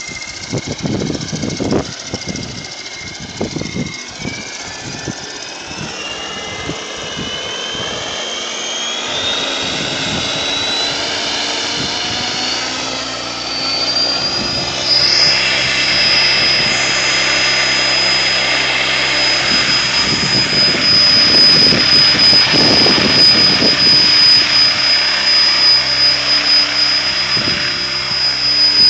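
Mikado Logo 600 electric RC helicopter spooling up on the ground. Its motor and gear whine rises steadily in pitch for about fifteen seconds as the rotor speeds up, then holds at a steady high whine once the rotor is at speed, growing louder toward the end.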